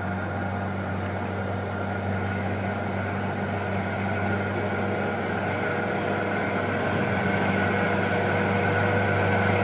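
Light truck's diesel engine running steadily under load on a steep, slippery climb, growing slowly louder.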